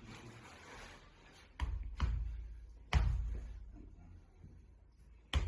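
Four sharp thumps from hands-on spinal adjustment thrusts on a treatment table, each followed by a deep boom that fades over about a second. Two come close together at about a second and a half in, one near three seconds and the last near the end.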